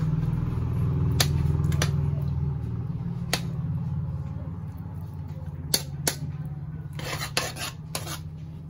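A metal spatula scraping and clinking against a metal wok while stirring butter and garlic, with sharp clinks spread through and a cluster of them near the end. Under it is a steady low hum.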